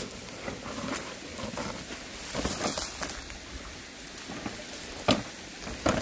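Dry leaves and twigs crackling and rustling as people move through the undergrowth, with two sharp snaps near the end.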